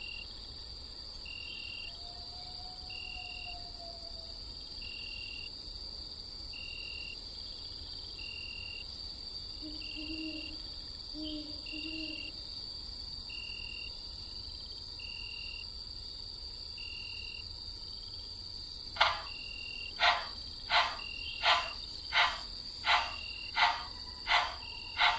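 A steady high insect-like drone with a short chirp about every second and a half, and a few faint low calls. About three-quarters of the way in, a pyramid mechanical metronome starts ticking, about three ticks every two seconds, louder than everything else.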